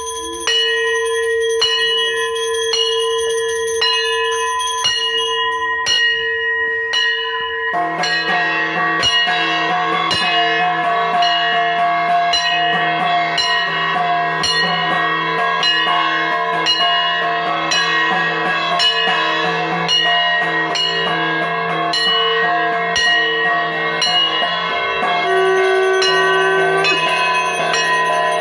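Puja instruments: a flat brass kansar gong struck with a stick at an even beat, with ringing metal bells, over long held notes from a conch shell. The strikes are spaced out for the first eight seconds and then turn into dense, overlapping ringing, and a lower conch note starts a few seconds before the end.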